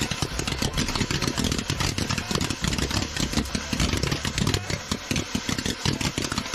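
Firework fountain burning inside a wooden tunnel, a fast, irregular sputtering crackle, over the steady hiss of an insecticide aerosol can spraying.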